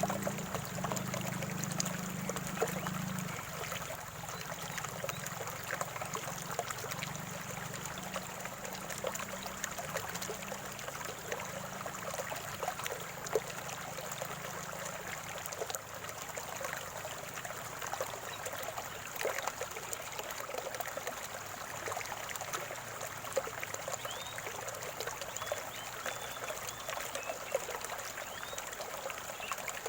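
Calm spring water trickling and gurgling steadily in a small stream, a continuous patter of tiny splashes.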